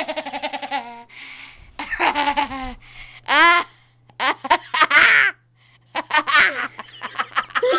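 Girls laughing hard in repeated bursts, some pulsing quickly and some rising to a high pitch, with short quiet gaps between.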